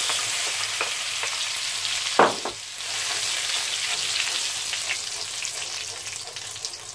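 Fresh curry leaves and whole spice seeds crackling and sizzling in hot rapeseed oil in a wok, stirred with a wooden spoon. There is a single knock about two seconds in, and the sizzle slowly dies down toward the end as the leaves fry off.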